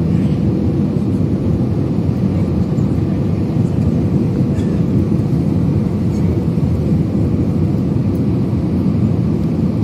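Airliner cabin noise during the descent to land: a steady low rumble of the jet engines and rushing air, with a faint steady hum.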